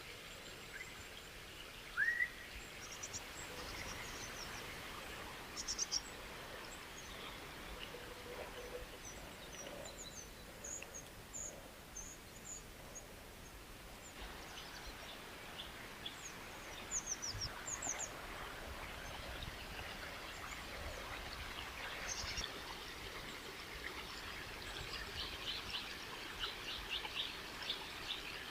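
Outdoor ambience: a steady rushing noise of flowing water, with small birds chirping now and then over it and a quick run of chirps near the end.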